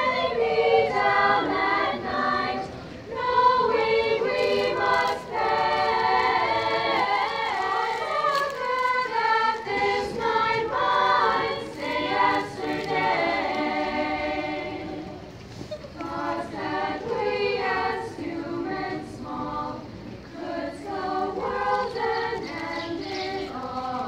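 Teenage girls' choir singing a cappella, several voices together. The singing drops to a softer passage about fifteen seconds in, then swells again.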